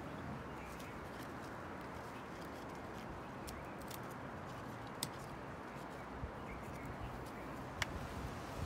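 Steel bonsai shears snipping wood at the chop scar on a young kukui trunk: a few sharp, short clicks, the clearest about five seconds in and another near the end, over a steady outdoor background hiss.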